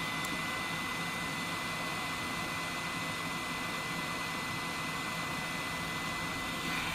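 Yihua 959D hot air rework station blowing at maximum airflow while it cools down toward 100 degrees: a steady rush of air with a thin, constant high whine.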